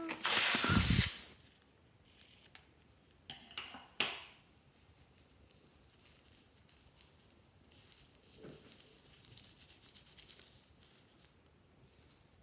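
A balloon snipped open with scissors, giving a loud hiss of about a second as its contents rush out. A few faint clicks and soft rustling follow.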